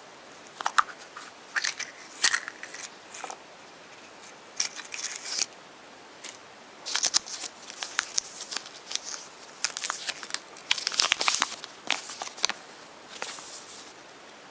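Crinkling, crackling and snapping of a chocolate surprise egg's foil wrapping and contents being handled, in irregular bursts with short pauses.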